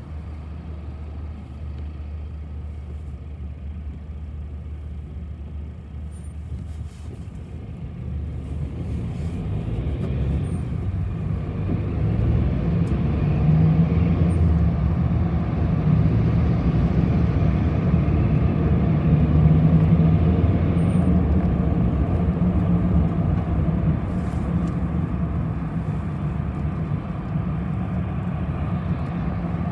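City bus running, heard from on board: a steady low engine hum, then about eight seconds in the engine note and road noise build as the bus picks up speed, staying loud through the middle before easing off a little.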